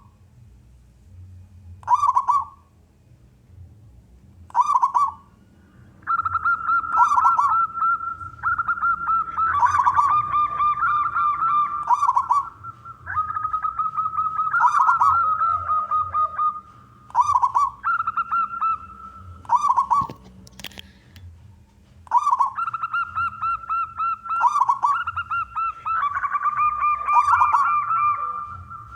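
Zebra dove (perkutut) cooing: a few separate short coos at first, then long runs of rapid, rolling, repeated coo phrases.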